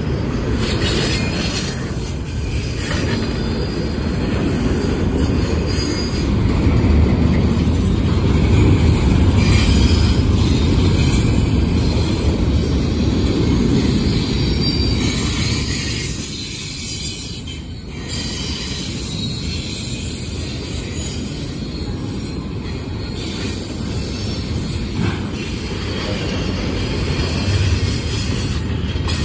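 Freight train rolling past on the rails, a steady heavy rumble of steel wheels on track with some high wheel squeal.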